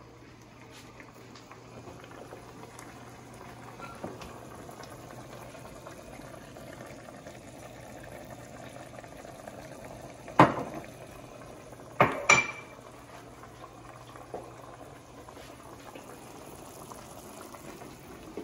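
Creamy mushroom stew boiling in a pot on a gas stove: a steady low bubbling. A sharp knock of cookware about ten seconds in, and a double clank with a brief metallic ring about two seconds later.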